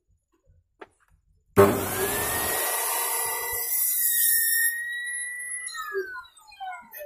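Bosch 950-watt circular saw mounted under a homemade saw table, switched on about a second and a half in: its motor whine climbs quickly to speed and runs steadily as a board is cut at an angle. Near the end it is switched off and the whine falls as the blade coasts down.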